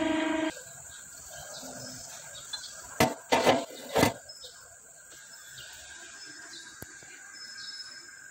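A few sharp metal knocks, clustered around three to four seconds in, as metal gear pump housing plates are set and shifted into place on a surface grinder's bed.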